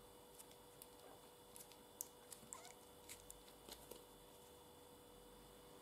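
Near silence: faint scattered clicks of a small plastic sample cup being handled and opened, over a faint steady hum.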